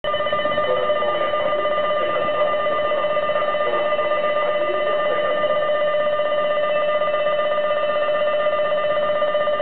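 Station platform departure bell ringing continuously in a fast, steady trill, the signal that the train is about to leave.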